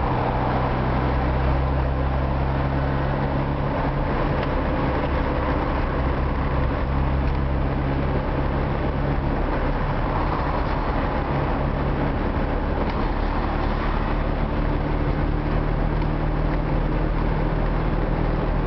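Old Moskvich car's engine and road noise heard from inside the cabin while driving, a steady low drone whose pitch shifts a few times as the speed changes.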